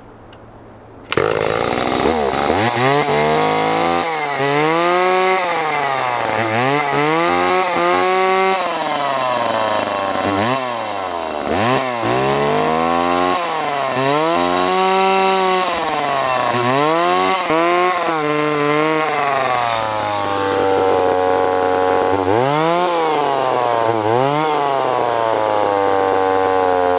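Vintage Echo CS-452VL two-stroke chainsaw engine running, coming in about a second in and then revved up and let back down over a dozen times, settling to a steadier run near the end with a couple more revs. The seller says the saw bogs and its carburetor needs cleaning or rebuilding.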